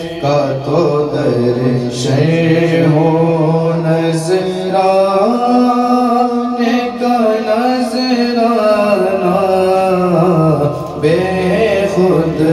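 Men's voices chanting a naat, an Islamic devotional poem, without instruments into a microphone, drawing the lines out in long held, gliding notes.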